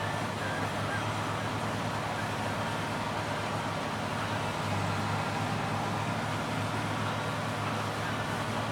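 Combine harvester running steadily: a constant low engine hum under even machine noise.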